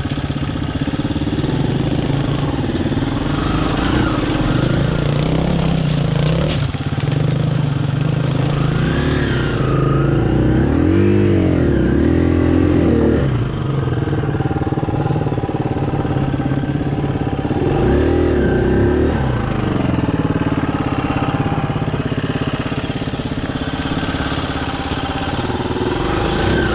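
Dirt bike engine running at low revs while being ridden over a rocky trail, with the throttle opened and closed so the pitch rises and falls; two short revs stand out, about 11 and 18 seconds in.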